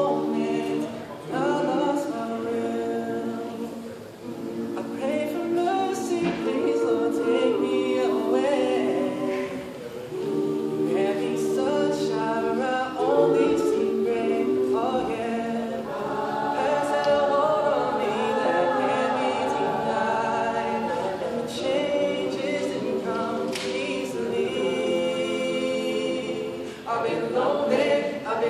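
A cappella vocal group of mixed men's and women's voices singing together in harmony, with no instruments, in phrases that swell and pause briefly every few seconds.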